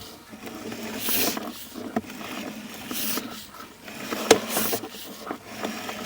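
Sewer inspection camera's push cable being hauled back through a clay drain line: uneven scraping and rubbing with a few sharp clicks.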